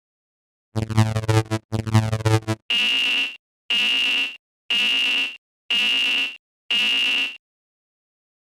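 Synthesized cartoon level-crossing alarm sounds: two short low, buzzy tones, then five evenly spaced high-pitched electronic beeps at about one a second.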